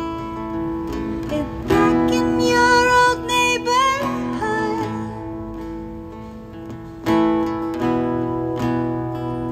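Live acoustic guitar strumming chords, with a singing voice holding long, wavering notes from about two to four seconds in.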